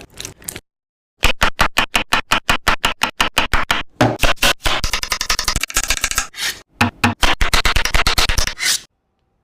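Knife chopping fast on a cutting board: a quick run of sharp taps, about five or six a second, in a few bursts with short silent breaks, falling silent near the end.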